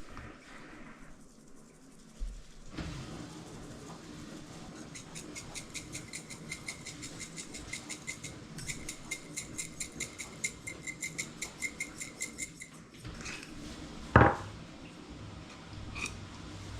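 A kitchen utensil clicking rhythmically against a dish, about four sharp clicks a second for several seconds, followed by one loud knock.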